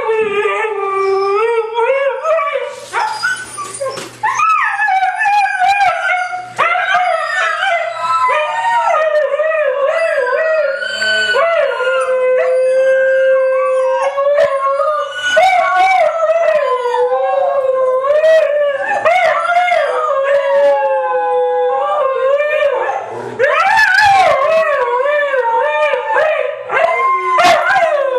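Huskies howling together in a chorus, several long wavering howls overlapping at different pitches, starting suddenly.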